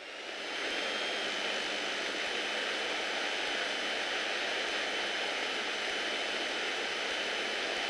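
Cockpit noise of a Beech Bonanza F33A in flight, heard through the intercom recording: the steady drone of the six-cylinder piston engine and propeller with airflow hiss and a faint steady whine. The noise swells over the first half second after the propeller is set to full RPM for landing, then holds level.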